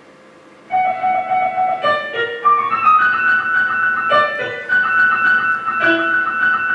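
Instrumental music begins about two-thirds of a second in: a melody of held notes over accompaniment.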